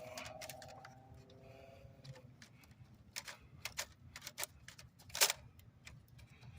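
Scattered light plastic clicks and ticks, the loudest about five seconds in, as hands work the electrical connector on a fuel rail pressure sensor to unplug it.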